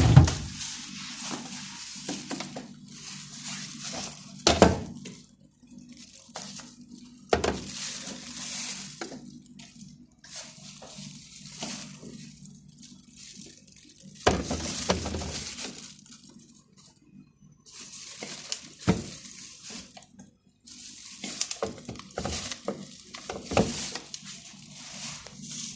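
Intermittent kitchen handling sounds: splashes of running water and clinks of dishes come and go in irregular bursts over a faint steady low hum.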